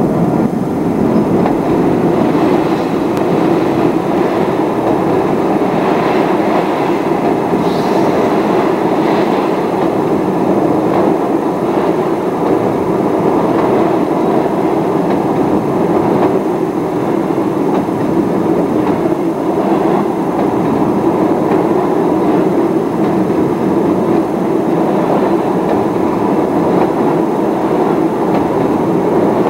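Train passing on a railway bridge directly overhead, heard from beneath the deck: a loud, steady noise of wheels running on the rails.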